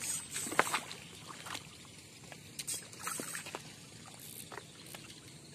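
A hooked fish thrashing at the water's surface: a string of short, irregular splashes, the loudest about half a second in.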